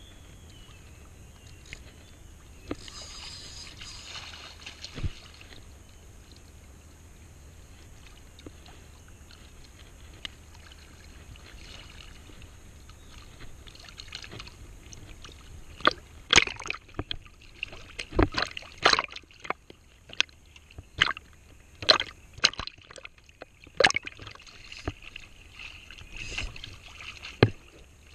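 Shallow seawater sloshing and lapping against a camera held at the water's surface, with a run of irregular sharp splashes in the second half.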